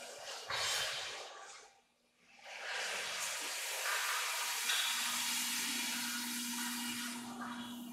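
5-axis CNC router's spindle running and milling a foam block, a steady hissing cutting noise. It drops out almost completely about two seconds in, then returns, and a steady spindle whine comes back in near five seconds.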